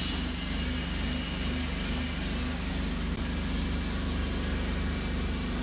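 An engine idling steadily: a low, even hum with a fine regular throb under a steady hiss.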